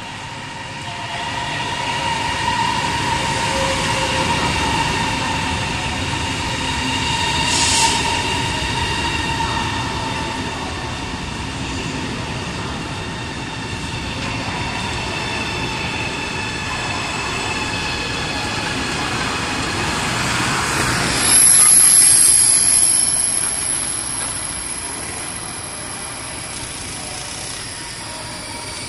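High-speed electric train (China Railway CRH multiple unit) running into the platform, with a steady rumble and a high electric whine of several tones. A short hiss comes about eight seconds in, and a louder burst of rushing hiss comes about twenty-one seconds in, followed by a thin, very high steady tone.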